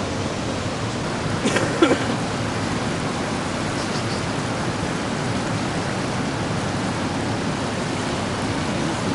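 Steady rushing of fast-flowing river water, an even hiss with no rhythm, with a brief louder sound about two seconds in.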